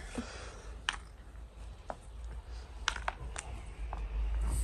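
A few light, irregular clicks and taps over a low rumble that grows louder near the end.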